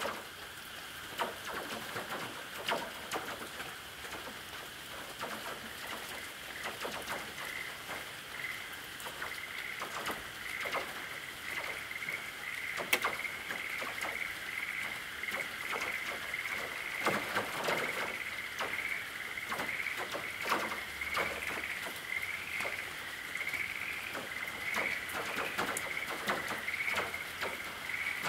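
Rain falling on a corrugated tin roof: irregular drops tapping and pinging on the metal over a steady patter. A high, wavering ring strengthens after about eight seconds.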